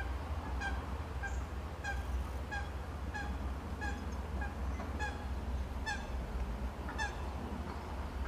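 A bird calling over and over in short, evenly spaced calls about every two-thirds of a second, about a dozen in all, stopping near the end.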